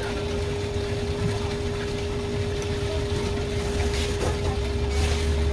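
A steady mechanical hum holding one constant tone over a low rumble, with a few faint scattered ticks.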